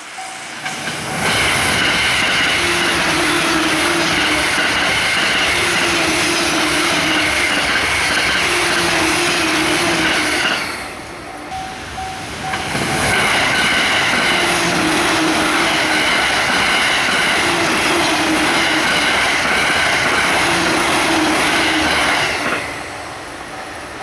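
Electric trains rushing past a level crossing at high speed on rain-wet track: two passes of about ten seconds each, the first starting about a second in. Between and after them the crossing's warning bell rings in an even repeating ding.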